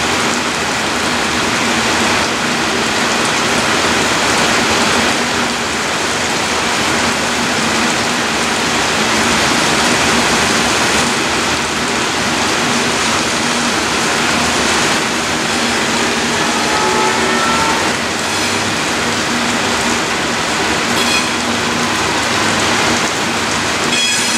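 Loaded freight cars of a rock train rolling past on the rails: a steady rush of wheel-on-rail noise. Brief wheel squeals rise out of it about two thirds of the way through.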